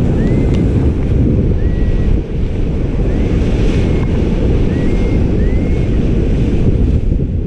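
Loud, steady wind buffeting the microphone in flight. Several short, faint whistle-like tones rise and level off, scattered through.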